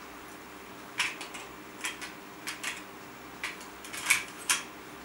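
Light, irregular plastic clicks and taps, about eight of them, as hands fit a wiring cap over the wire joints and seat the wires and cap in the plastic housing of an Orpat timepiece.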